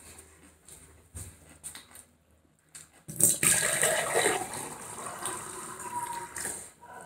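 A few faint clicks, then about three seconds in, water suddenly starts running steadily.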